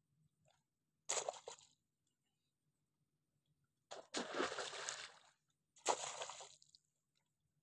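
Clods of wet mud being dug and tossed, landing with a splash three times: a short one about a second in, a longer one at about four seconds, and another just before six seconds.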